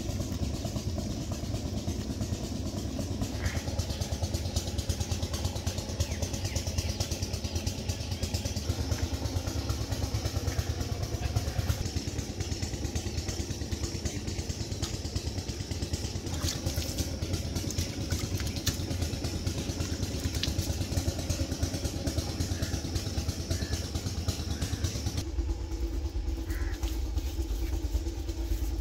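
An engine running steadily, with a dense low rumble; its tone shifts abruptly about three-quarters of the way through.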